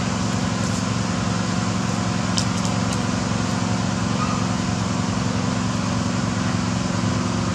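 A steady mechanical hum from a running motor, an even low drone that holds without change, with a couple of faint clicks a little past two seconds in.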